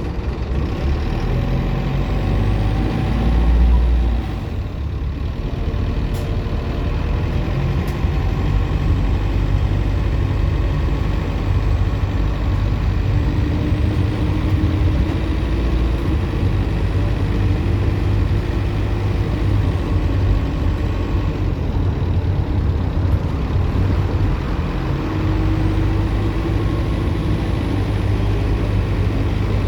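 Optare Solo M950 midibus's diesel engine running under way, with a faint high turbocharger whine that rises and falls several times.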